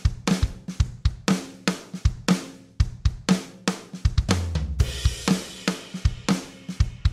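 Background music built on a steady drum-kit beat of kick, snare and hi-hat, with a cymbal wash and a low bass note a little past four seconds in.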